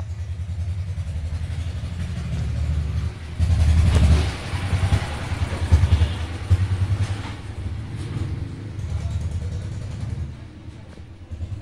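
Low engine rumble from a motor vehicle running nearby, swelling louder about three and a half seconds in and again near six seconds.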